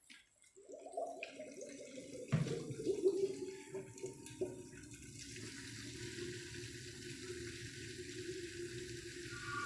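Distilled water gurgling and splashing through a custom PC water-cooling loop as its pump circulates it, a steady churning sound with a sharp knock about two seconds in.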